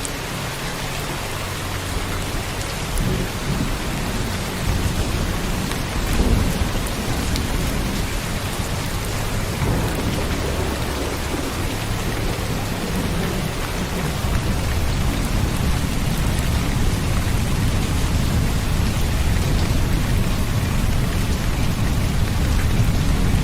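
Steady rain with low rolls of thunder, the loudest about six seconds in.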